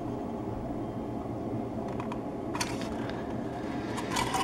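Steady low machine hum in a small room, with a few faint light clicks as hard styrene model-kit parts are handled.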